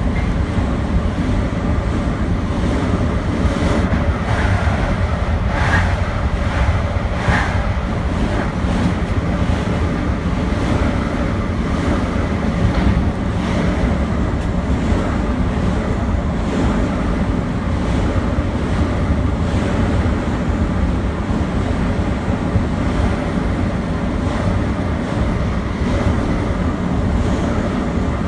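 A Metro-North commuter train running on the rails: a steady low rumble of wheels and running gear, with two brief higher squeaks about six and seven seconds in.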